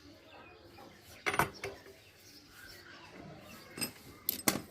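Metal parts and tools clinking and knocking during repair work on a scooter's one-way starter clutch. A few sharp clicks come about a second in, then another cluster near the end.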